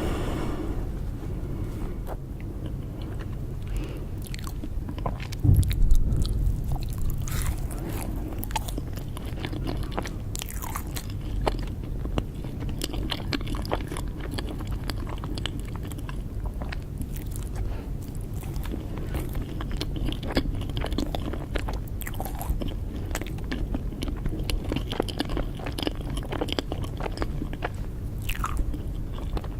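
Close-up chewing and biting of cake: soft wet mouth sounds with many small crisp clicks and crunches, and a louder bump about five and a half seconds in.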